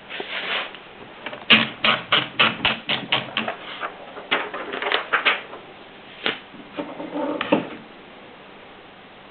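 Royal P portable typewriter being typed on: a quick run of about a dozen key strikes, then more scattered strikes with pauses between them.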